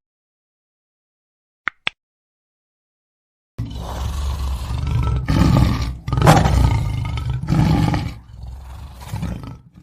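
Lion roaring: a run of deep, rough roars starts about three and a half seconds in, is loudest just after the middle and fades near the end. Two short sharp clicks come just before it, under two seconds in.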